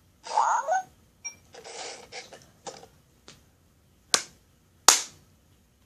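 Short electronic sounds from a toy robot dog, then two sharp cracks under a second apart about four seconds in.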